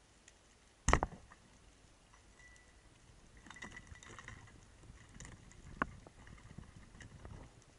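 Speargun fired underwater: one loud, sharp crack about a second in, followed by faint scattered clicks and scraping in the water.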